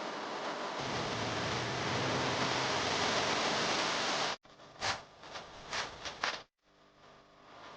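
A steady rushing hiss that grows a little louder about a second in and cuts off suddenly past the middle. It is followed by four or five short, sharp hissing bursts, then a faint hum.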